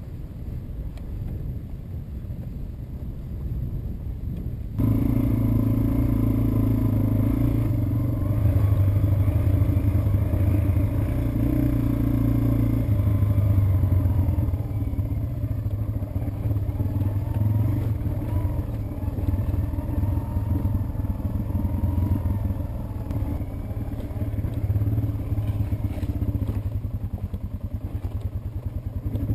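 Yamaha TW200's single-cylinder four-stroke engine running steadily as the motorcycle rides a dirt trail. The first few seconds are only a low rumble of wind on the microphone, then the engine note comes in loud and steady.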